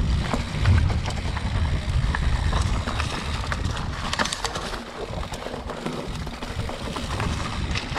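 Mountain bike riding down a dirt forest singletrack, heard from the bike: a steady low rumble with scattered clicks and rattles as the tyres and frame go over the trail, the rumble easing a little past the middle.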